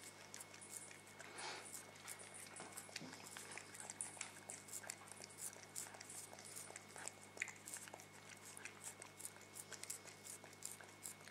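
A cat licking soft ice cream from a wafer cone: faint, wet, irregular lapping and smacking clicks, several a second.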